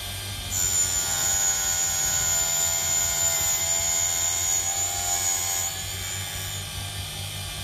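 A small electric grinding motor runs steadily with a low hum. From about half a second in, a high whine and louder grinding join it, fitting carbide being ground against the wheel. They ease off about six seconds in, leaving the motor hum.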